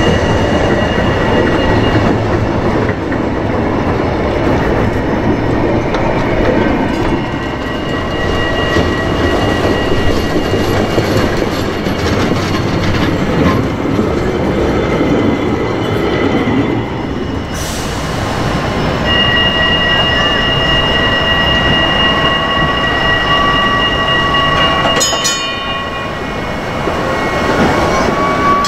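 Vintage trams rolling slowly past one after another, steel wheels rumbling on the rails with a steady high wheel squeal that fades and then returns strong. A short run of clicks comes about three-quarters of the way through.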